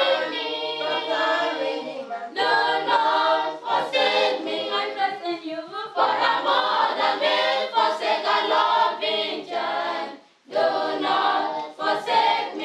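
A choir of women and girls singing unaccompanied, with a brief pause about ten seconds in.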